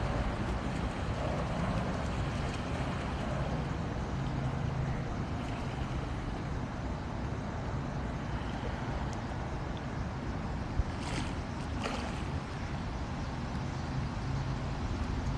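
Steady rumble of a jet airliner flying low overhead on its landing approach, over the rushing of the flood-swollen river. Two short ticks about a second apart come late on.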